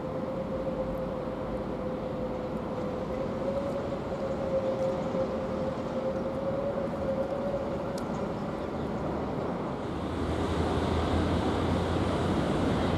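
Changsha Maglev Express train running along its elevated guideway, heard as a steady humming whine that wavers slightly in pitch over a rushing background. About ten seconds in, the whine fades and a louder, steady rush of a distant high-speed train takes over.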